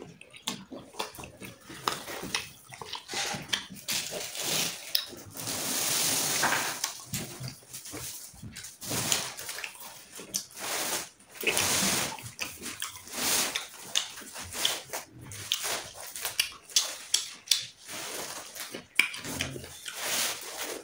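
Close-up eating sounds: a person chewing and slurping food, with irregular wet smacks and clicks.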